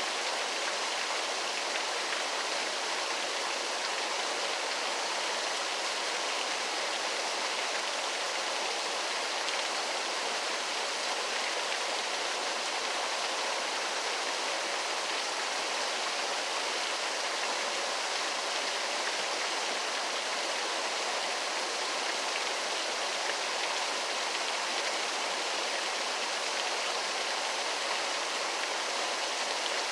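Waterfall: a steady, even rush of falling water with no breaks or separate splashes.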